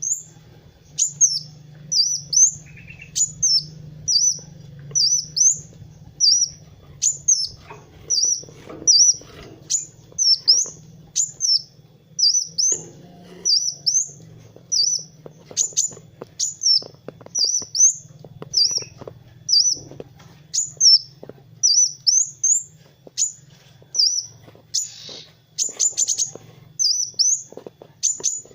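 Kolibri wulung sunbird singing energetically: an unbroken run of short, high, sharp chirps, each with a quick up-and-down pitch hook, about two a second. A faint low hum lies beneath.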